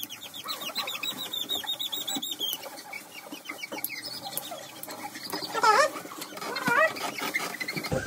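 German shorthaired pointer puppy squeaking and crying while its nails are clipped: a fast string of high squeaks, then a loud yelp about halfway through and another shorter cry a second later.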